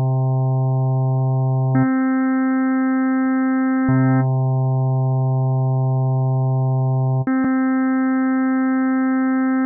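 Synthesizer pad from u-he's Zebralette 3 playing sustained notes on a keyboard. The body comes from a few low additive harmonics, and the upper harmonics sit on a separate layer. The notes change three times, about two to three seconds apart, and the higher set of overtones comes in on some notes.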